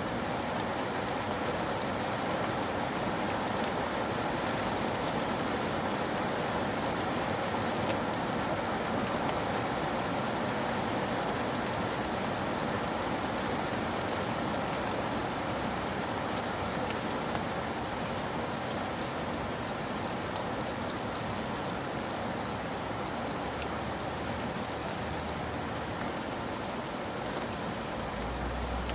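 Steady rainfall, a continuous patter with many small droplet ticks against a surface.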